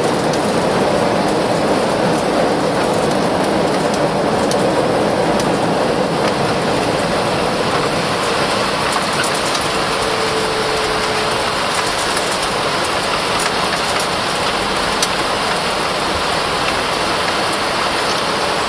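Airbus A319 airliner during its landing: a steady rushing noise with scattered light clicks and ticks.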